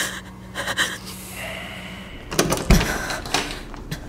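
Footsteps of heeled boots on a hard floor, a run of sharp clicks with a low thump about two and a half seconds in.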